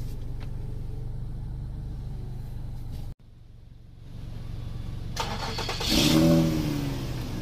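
Steady low engine hum heard from inside a car, cut off abruptly about three seconds in. Then a Ford Mustang's engine is started about five seconds in, catching and revving up before easing back toward idle.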